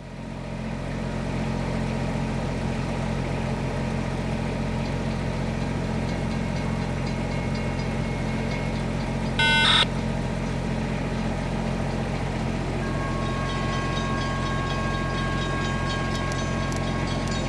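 Steady low diesel engine drone, with a short horn blast just past halfway. Near the end, two steady high ringing tones join in.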